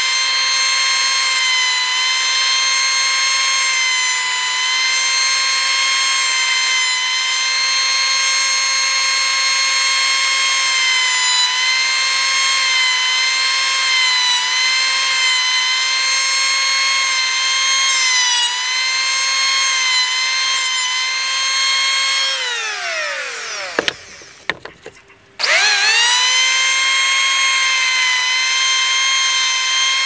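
Handheld electric grinder running with a steady high whine as it smooths the edge of a cut sheet-metal disc. About 22 seconds in it is switched off and winds down with a falling whine. After a short pause it is started again and spins back up to speed.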